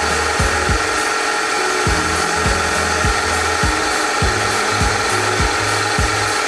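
Milling machine cutting valve pockets into an aluminium CBR piston crown: the spindle runs steadily with a constant high whine as the cutter scrapes the metal.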